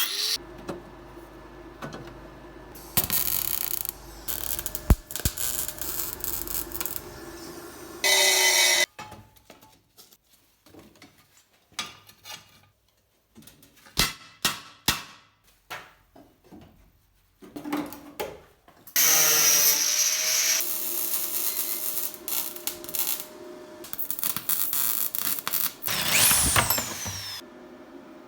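Power-tool and hand-tool work on a car's underbody: loud bursts of power-tool noise lasting a few seconds each, broken by quieter stretches of scraping and sharp clicks, with a tool's pitch sweeping up and down near the end.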